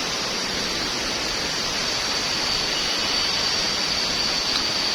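Waterfall rushing steadily. A thin, high, steady whine runs above the rush and grows clearer about halfway through.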